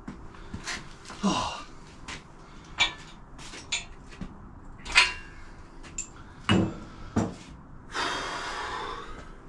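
Scattered metal knocks and clunks as a VW flat-four engine is worked onto an engine stand, with a steady hiss lasting about a second near the end.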